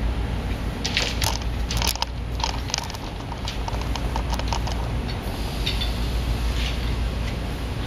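Light clicks, rattles and crinkles of handling noise as the poles and printed fabric of a trade-show backdrop are fitted together, a busy run of them from about a second in until about five seconds, over a steady low room hum.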